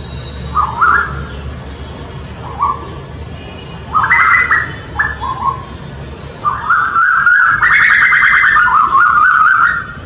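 Male Asian koels calling to each other in a territorial dispute: short rising calls about a second in, then again near two and a half, four and five seconds, followed by a long run of rapid repeated notes that rises and falls and stops just before the end.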